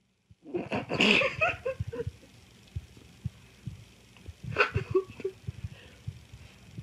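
A German Shepherd and a small black-and-white dog at rough play, giving short pitched grumbles and yips in two bursts, about a second in and again near five seconds, with soft bumps of bodies moving between them.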